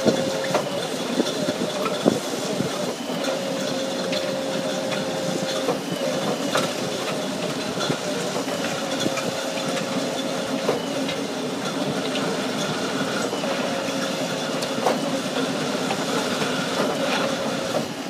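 Remu EP3150 screening bucket turning on an excavator, with soil and stones rattling through its screen as it sifts material down to 25 mm, over the excavator's running engine. A steady whine runs through it, breaking off every few seconds.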